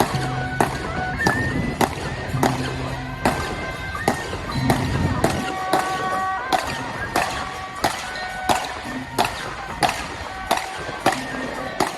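Temple procession music: loud percussion strikes at a fairly regular beat of about two a second, with a high melody line above them. A low drone underneath stops about five seconds in.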